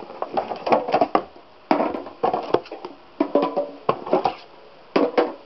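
Sealed card hobby boxes being handled and marked inside a cardboard case: irregular knocks and scrapes of the boxes against each other and the cardboard, with short squeaks of a Sharpie marker writing numbers on the wrapped boxes.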